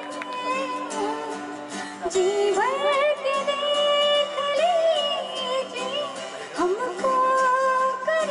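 A woman singing a Hindi song into a microphone, with strummed acoustic guitar accompaniment. Her long held notes slide up into pitch about two seconds in and again near the end.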